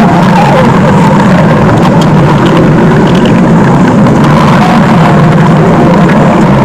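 Stomach growling sound effect: a very loud, steady low rumble with brief wavering squeaks that rise and fall in pitch.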